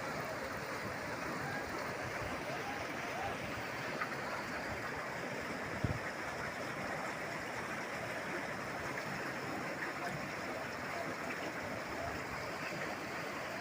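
River water flowing, a steady rushing noise, with a single short knock about six seconds in.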